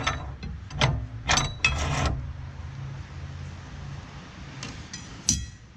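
Steel pieces being handled, clanking with a short metallic ring: a cluster of knocks about a second in and one more sharp clank near the end, over a low steady hum.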